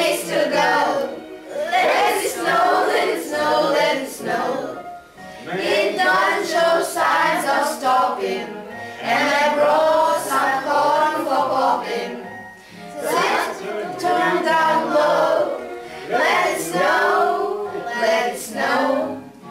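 Music track with a choir singing, in phrases a few seconds long separated by short breaths.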